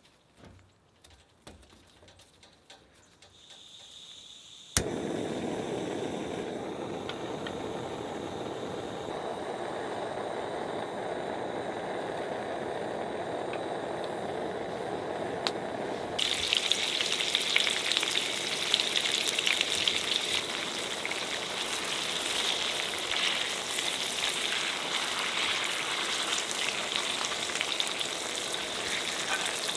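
Tofu frying in oil in a pan. A steady rushing sound starts abruptly with a click about five seconds in, and from about the middle a louder, crackling sizzle takes over.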